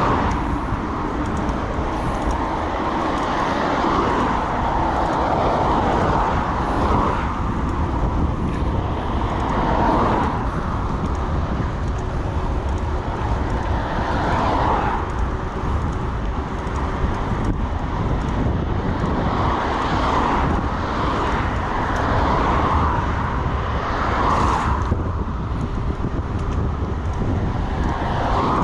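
Steady wind and road rumble from a moving bicycle ride, with a swell of noise every few seconds.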